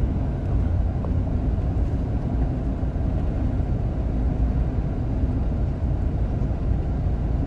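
Steady road and engine noise inside the cabin of a car cruising down a highway, a low, even rumble.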